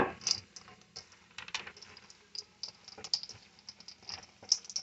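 Bare hands mixing and squeezing crouton stuffing with diced apple, dried fruit and nuts in a stainless steel bowl: irregular quick crackling and rustling clicks of bread cubes and nuts being tossed.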